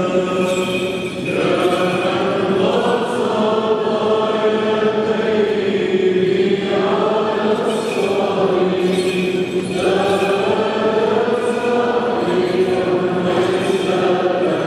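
Byzantine-rite liturgical chant: voices singing long, slowly moving phrases with held notes. The phrases break briefly about a second in, around six and a half seconds in, and near ten seconds.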